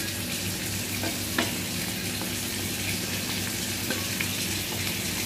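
Sliced onions sizzling steadily in hot oil in a cooking pot as chopped tomatoes, green chillies and ginger-garlic paste are scraped in with a slotted spoon. A few sharp clicks of the spoon against the plate and pot, the clearest about a second and a half in.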